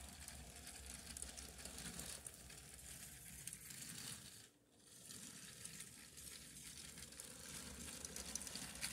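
A Lego locomotive and tender rolling along plastic Lego track as they are pushed by hand: a faint, steady rattle of plastic wheels with many small clicks, breaking off briefly about halfway through.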